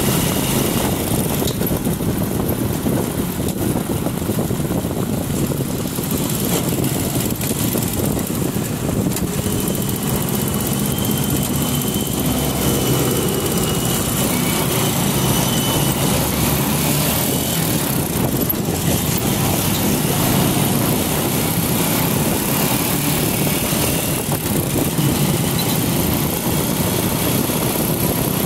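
Motorcycle riding along a road: the engine runs steadily under a constant low rumble of wind and road noise.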